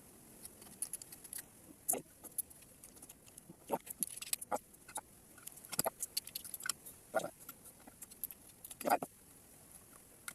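Close-up eating of raw shellfish: irregular wet mouth clicks and chewing, with sharp clinks of shells, the loudest near the end.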